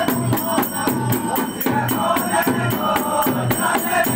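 A group of men singing a Phagua, a Holi folk song, together. A dholak hand drum beats a steady low rhythm, and metal percussion clashes in regular strokes several times a second.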